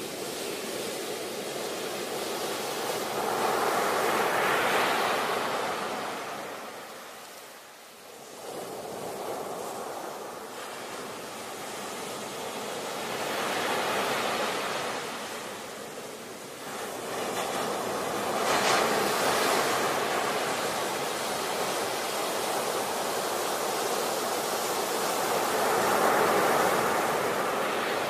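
Ocean surf: waves breaking and washing in, the rushing noise swelling and falling away every several seconds.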